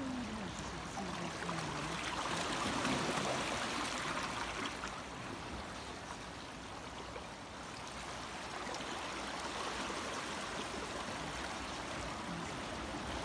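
A steady rushing noise, like running water, a little louder a few seconds in and easing slightly around the middle.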